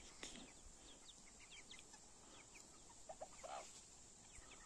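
Bantam chickens faintly peeping and clucking: many short high peeps throughout, and a few lower clucks about three seconds in.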